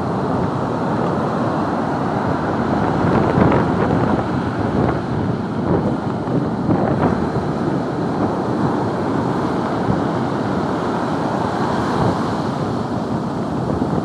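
Heavy, typhoon-driven surf breaking and washing up a sandy beach, a steady rushing roar with surges as waves come in. Strong wind buffets the microphone throughout.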